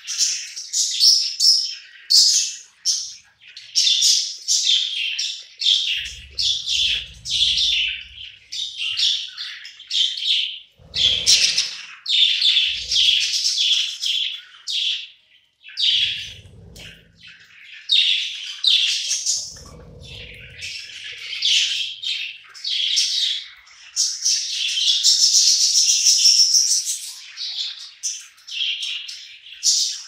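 A flock of budgerigars chattering and chirping, a continuous jumble of quick overlapping high notes from many birds at once as they feed together. A few dull low thumps sound under the chatter.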